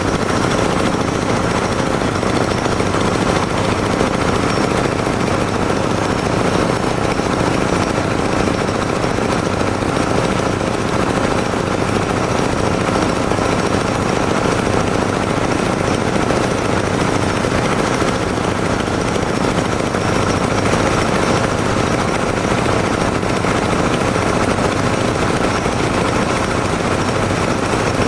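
Hole drilling machine running steadily at work, a loud, dense, fast rattle that never pauses.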